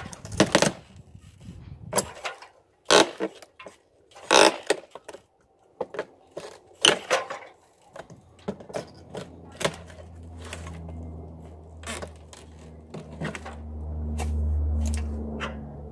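Hand tools scraping and knocking irregularly against an old, rotten window frame as it is worked loose, with sharp clicks and scrapes. From about ten seconds in, low background music fades in and grows louder.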